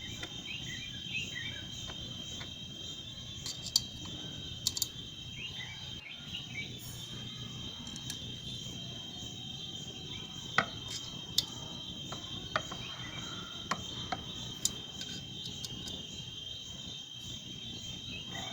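Crickets chirring steadily at a high pitch. Scattered sharp metallic clicks and taps, about nine in all, come from screws and a screwdriver as a washing machine's spin-dryer motor is screwed into place.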